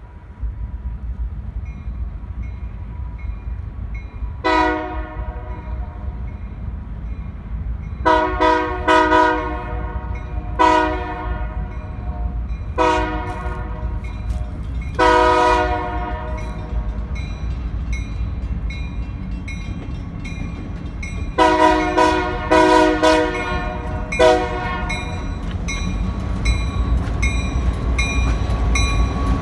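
Diesel freight locomotive running with its engine rumbling low and steady, sounding its air horn in a series of blasts for a grade crossing, one long blast about fifteen seconds in and a cluster of short ones about twenty-two seconds in. A bell dings steadily in the background.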